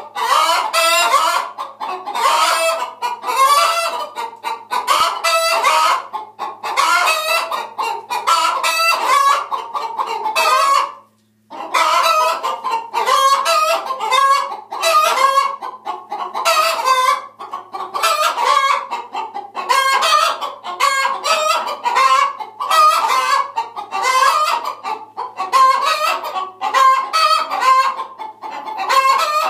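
A flock of chickens calling loudly, with many clucks and squawks overlapping, broken by a brief silence about eleven seconds in.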